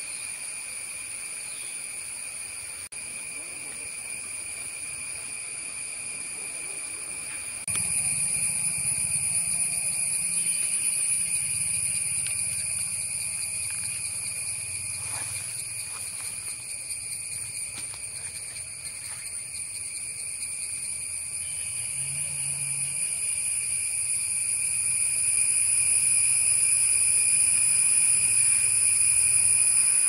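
Tropical forest ambience dominated by a steady, high-pitched insect drone from cicadas or crickets, held at a few fixed pitches. About eight seconds in it gets louder, and a low rumble joins underneath and grows toward the end.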